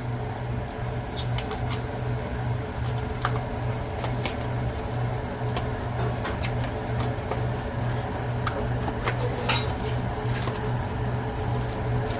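Rice toasting in hot oil in a pan, with irregular small crackles and pops over a steady low hum.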